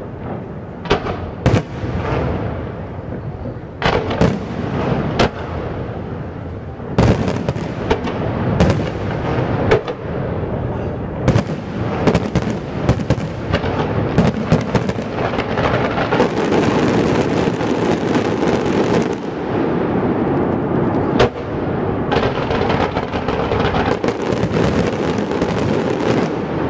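Fireworks going off: sharp, loud bangs scattered irregularly, thickening into a dense, near-continuous barrage in the second half.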